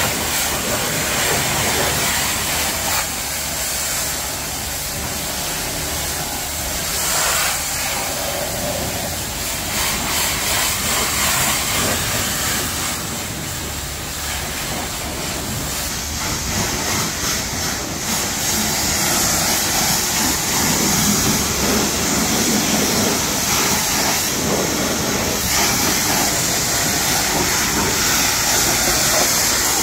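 High-pressure water jet from a self-service car wash spray lance, a steady hiss as it sprays the car's bodywork and the wet floor. It grows louder and brighter a little past halfway.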